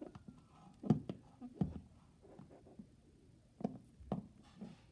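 Light, irregular taps and clicks of plastic toy horse figurines being moved and set down on a hardwood floor.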